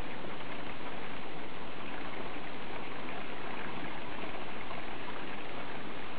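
Rain falling steadily, an even hiss with faint scattered drop ticks.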